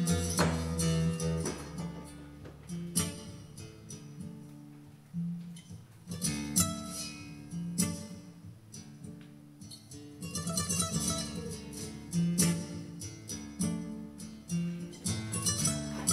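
Flamenco guitar music: plucked notes and sharp strummed chords on an acoustic flamenco guitar.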